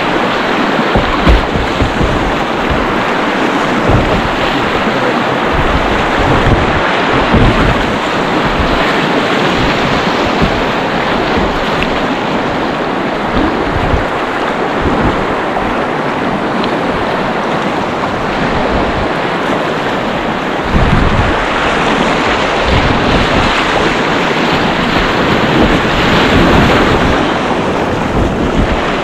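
River water rushing and splashing around a kayak running riffles, with wind buffeting the microphone in irregular low gusts.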